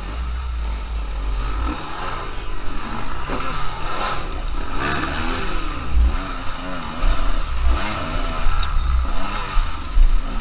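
Enduro motorcycle engine revving up and down in short bursts while the bike works over rocks. The pitch rises and falls throughout, with wind buffeting the microphone.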